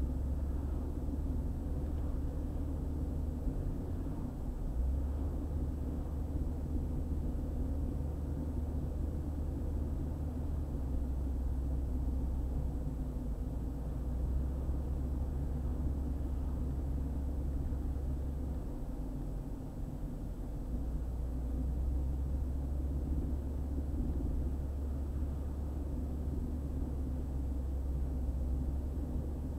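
Car driving along a highway: a steady low rumble of engine and road noise, dipping briefly about two-thirds of the way through.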